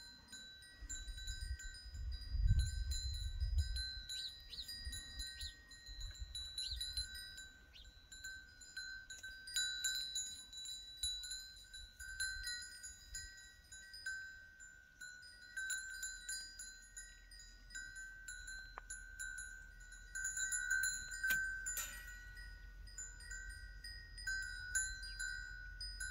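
Small metal bells ringing and jingling on and off at a few fixed high pitches. A burst of wind rumble on the microphone about two to four seconds in.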